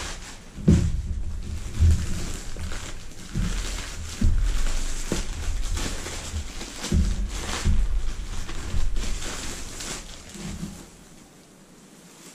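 Plastic mailer bag crinkling and rustling as it is torn open and its plastic-wrapped contents are pulled out, with several sharp crackles and handling bumps. It goes much quieter about a second before the end.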